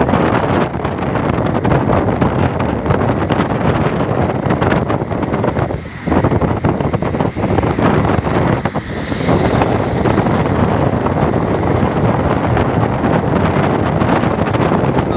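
Wind rushing over a mobile phone's microphone held at a moving car's window, over the steady rush of road and traffic noise, easing briefly about six seconds in.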